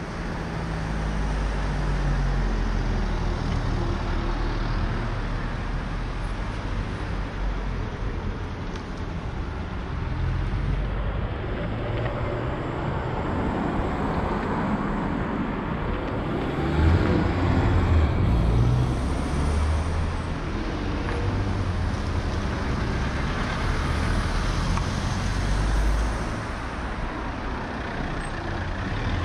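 Road traffic: cars passing close by one after another at low speed, engines and tyres on the road. The loudest pass comes a little past halfway through.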